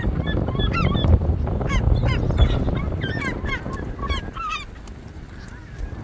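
A flock of gulls calling: many short, overlapping squawks that bend up and down in pitch, over a steady low rumble. The calls die away about three-quarters of the way through.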